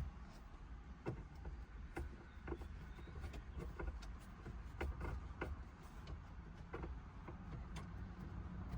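Faint, irregular clicks and scrapes of a hand screwdriver turning screws to fasten a car head unit into the dash, over a low steady rumble.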